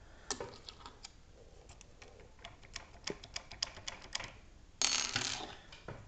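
Irregular small, sharp metal clicks and ticks from handling a brass euro-profile lock cylinder and its key, then a short, louder rattle near the end.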